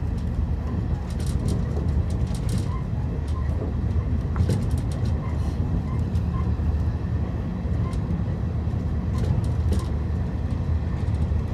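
Passenger train running along the line, heard from inside a carriage: a steady low rumble from the wheels and running gear, with a short rattle now and then.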